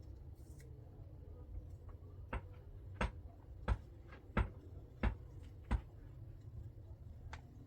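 A series of sharp knocks, six evenly spaced about two-thirds of a second apart, then one more near the end, over a steady low rumble.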